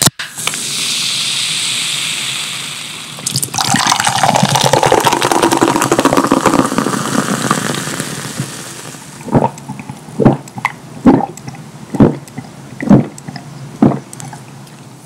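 Canada Dry soda fizzing hard just after the can is opened, then poured from the can into a glass with a steady splashing stream. About six loud gulps follow, roughly one a second, as the soda is drunk from the glass.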